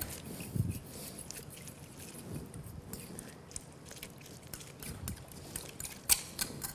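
Fork beating an egg and lemon-juice mixture in a glass baking dish: light, irregular clicks of metal against glass, with a few soft knocks.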